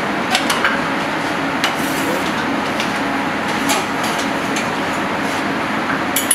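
Steady rush and hum of a commercial kitchen's ventilation, with a few short clinks and knocks of metal pans and utensils.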